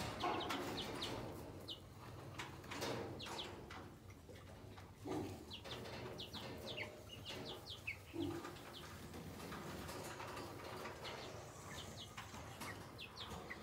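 A flock of four-week-old chickens, Cornish cross meat birds and egg-layer pullets, peeping softly: scattered short, high calls that slide downward, several a second at times.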